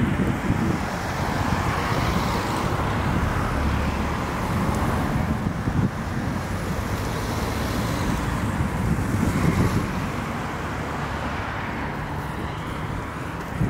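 Street traffic: cars driving past on the road close by, a steady rumble of engines and tyres, with one louder pass about nine seconds in.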